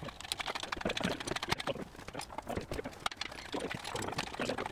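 A rapid, irregular run of light knocks and clicks, several a second, starting right at the beginning.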